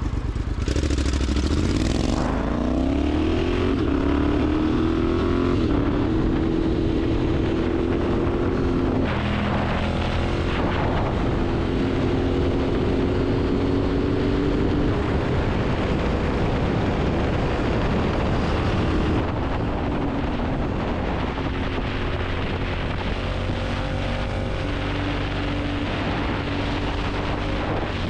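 Vehicle engine under way, rising in pitch twice through gear changes in the first few seconds, then running at a fairly steady speed with small rises and falls, over steady road and wind noise. It drops a little in loudness about two-thirds of the way through.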